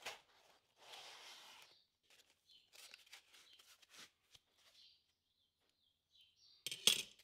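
Handling noise of unpacking anodised aluminium chassis rails from packing foam: foam rubbing and squeaking as it is pulled away, light knocks of metal, and a louder brief rustle and clatter near the end.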